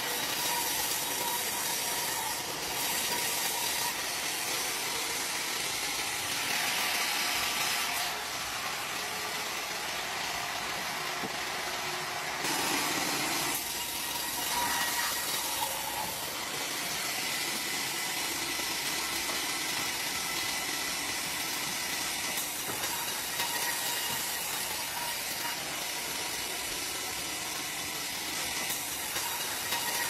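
Wood-Mizer WM4500 band sawmill running, its band blade sawing through a log with a steady hiss.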